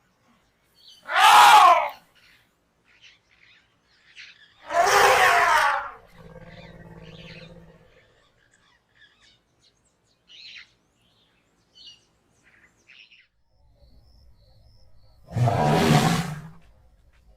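Elephants trumpeting: three loud, harsh blasts of about a second each, one near the start, one about five seconds in and one near the end. After the second blast comes a lower, steady call for about two seconds, and a few faint short high chirps follow.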